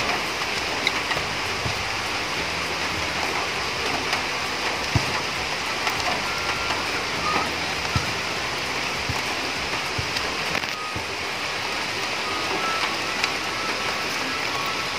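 Steady rain falling, an even hiss, with a few faint knocks about a third and halfway through.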